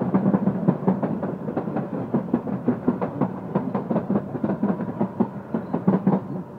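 MBTA Red Line subway train running, its wheels clattering over the rails in rapid, uneven knocks over a steady low hum.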